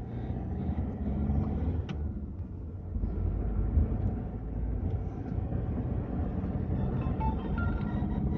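A car on the move, heard from inside the cabin: a steady low rumble of engine and road noise, with a small click about two seconds in.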